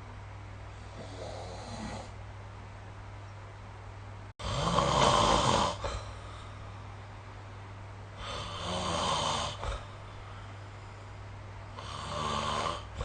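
A sleeping person snoring: a faint breath early on, then three loud snores about three and a half to four seconds apart, each lasting a second or more.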